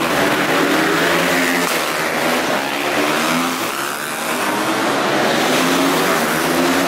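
Racing motorcycle engines passing at speed, their note rising and falling as the bikes rev through the gears, over a steady rush of noise.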